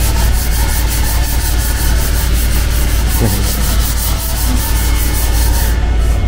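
Hand sanding of a repaired carbon-fibre spoiler with a sanding pad: quick back-and-forth rasping strokes, about four a second, stopping shortly before the end.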